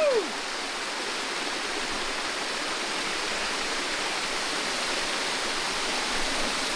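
Small forest waterfall cascading over mossy rocks into a pool, a steady, even rush of falling water.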